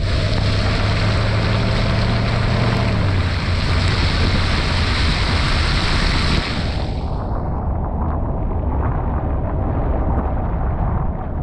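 Heavy hiss of wind on the microphone and wet tyre noise from a car moving over a rain-soaked lot, over a low steady engine drone. The hiss fades about seven seconds in, leaving a duller rumble.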